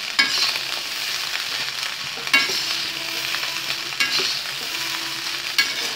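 Chicken fried rice sizzling in a wok on high flame while a spatula stirs it fast. The spatula knocks against the pan four times, every second and a half to two seconds.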